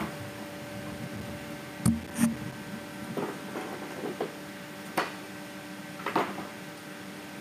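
A portable folding wheelchair ramp being handled and set down at a train doorway: two loud knocks close together about two seconds in, then lighter clicks and clatters. A steady hum from the train runs underneath.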